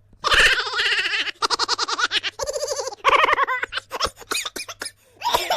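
Laughter sound effect: a person laughing in fast, evenly repeated pulses, then breaking into shorter, choppier bursts toward the end.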